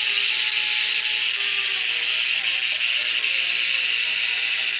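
1930s diathermy machine running at power, driving a single-electrode x-ray tube: a loud, steady, harsh buzzing hiss.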